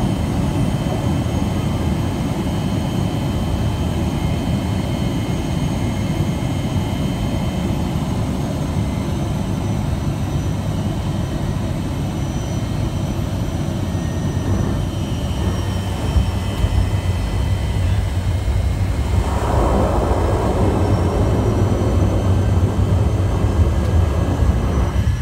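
Floatplane engine and propeller droning steadily, heard from inside the cabin. From about two-thirds of the way through it grows louder, joined by a rushing hiss of water spray off the floats as the plane picks up speed on the water.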